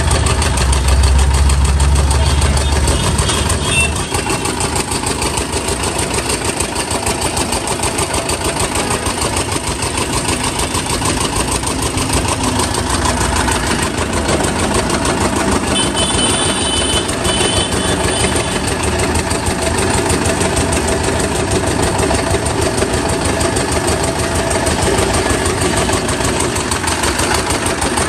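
Engine-driven sugarcane juice crusher running steadily, with a fast, even knocking beat. The low rumble is heavier for the first few seconds.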